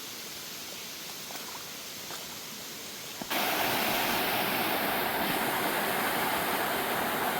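Steady rushing of running water, which becomes suddenly louder about three seconds in.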